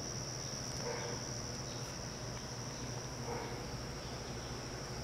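Insects droning at a high pitch, one unbroken tone, over a low steady hum.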